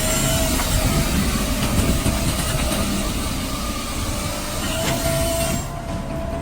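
Firewood processor running, its large carbide-toothed circular saw cutting through a log over the steady whine and rumble of the machine. The cutting hiss stops about five and a half seconds in.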